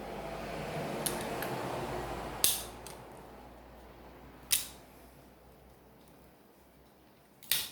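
Small sharp clicks and taps from a tablet's internal parts and tools being handled as its motherboard is lifted out: four distinct clicks, the loudest about two and a half seconds in, over a soft rustling that fades after the first three seconds.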